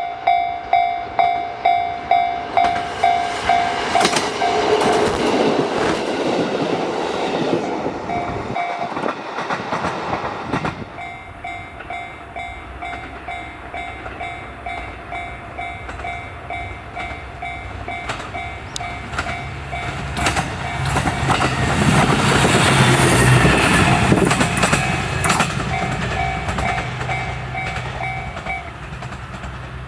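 Japanese level-crossing warning bell ringing in a steady beat of about two strokes a second while a KiHa 125 diesel railcar runs past. After a short break the bell starts again, and a KiHa 200 diesel railcar approaches and passes, its engine and wheels loudest about two-thirds of the way through.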